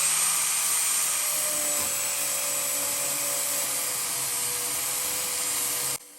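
Handheld power grinder with a flap disc grinding rust and paint off car body sheet metal, cleaning it to bare metal for a welder ground clamp. It runs steadily with a high whine and a hiss of grinding, and cuts off suddenly near the end.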